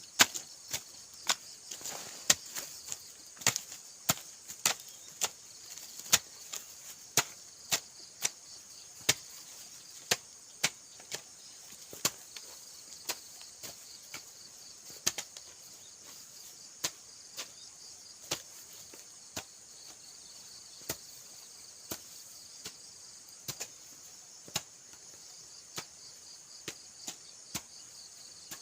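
A hand tool striking repeatedly with sharp knocks, about once a second, over a steady high chirring of insects.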